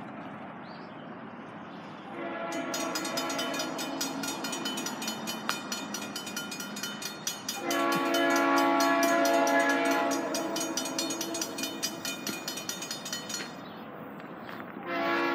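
Railroad crossing signal bells start ringing about two seconds in as the gates come down, and stop near the end. An approaching locomotive's horn sounds over them, a long loud blast about eight seconds in that fades away, then another starting just before the end.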